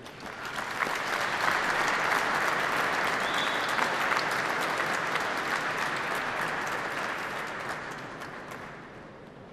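Audience applauding. The clapping swells over the first second, holds, then dies away over the last couple of seconds.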